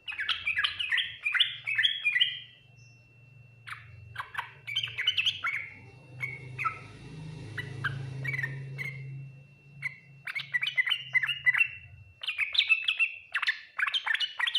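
Yellow-vented bulbul (trucukan) singing: bursts of quick, chattering, bubbling notes in phrases of one to two seconds, broken by short pauses.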